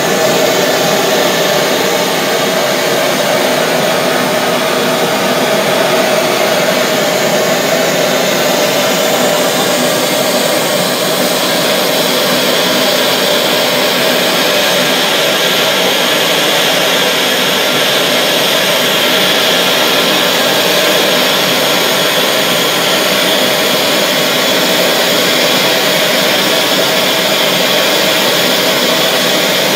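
Glassblower's bench gas torch burning with a loud, steady rush of flame as it heats glass tubing for blown-glass Christmas spheres.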